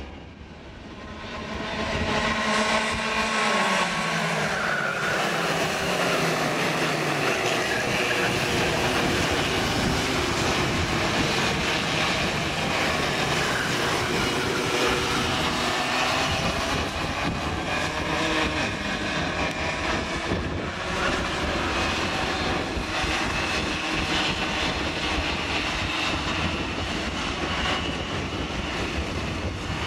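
A pack of Raket racing karts, their small two-stroke engines whining together as they lap the track. Engine notes fall over the first few seconds as karts slow for a corner, then many engines run on in a steady, dense whine.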